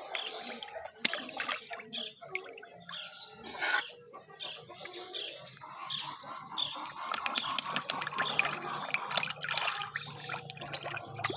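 Feeding fish splashing and slurping at the water surface as they snap food from a hand-held spoon, with a quick, irregular patter of sharp splashes and sucking clicks.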